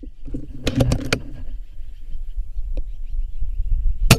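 A single sharp shot from a moderated FX Impact M3 .25-calibre PCP air rifle near the end. About a second in there is a short cluster of clicks, typical of the side lever being cycled to load the next pellet. Under it all runs a steady low rumble.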